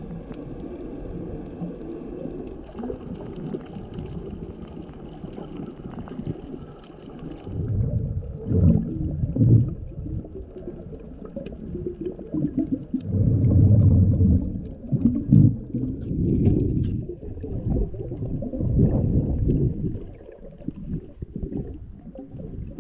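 Muffled underwater sound picked up by a camera in its waterproof housing: low, irregular rumbling and gurgling of water moving around the housing, with louder surges from about eight seconds in. A faint steady hum with several tones sits under it for the first seven seconds or so.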